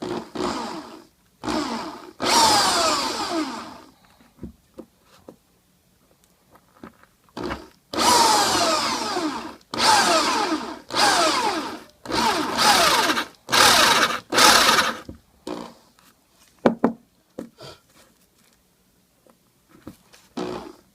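Electric drill fitted with a 1-inch bit, drilling out the old knot of a shaving brush from its handle. It runs in repeated bursts of one to two seconds, its pitch sliding down within each burst.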